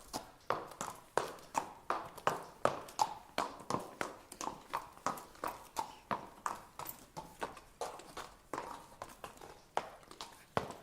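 A horse's hooves clip-clopping on the ground at a walk: a steady run of sharp knocks, about three a second.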